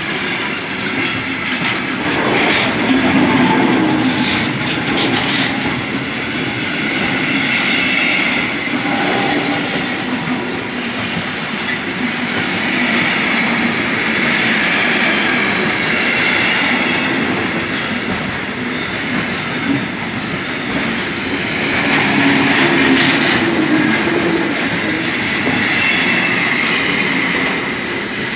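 A train passing close by at a level crossing, its wheels clattering over the rails in a steady rolling noise that swells louder about three seconds in and again about twenty-two seconds in.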